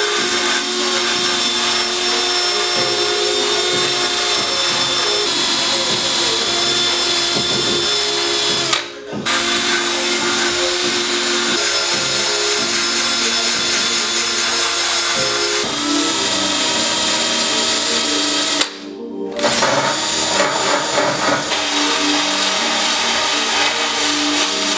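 Cordless drill spinning a wire wheel brush against the car body's sheet metal, scrubbing seam sealer and paint off a seam. It runs steadily with a high motor whine and stops briefly twice, about nine and nineteen seconds in.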